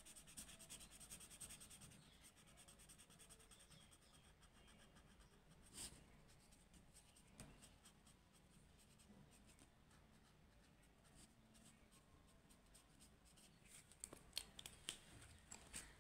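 Very faint scratching of a red marker stroked back and forth on paper while colouring in, with a few small ticks about six and seven seconds in and a cluster of them near the end.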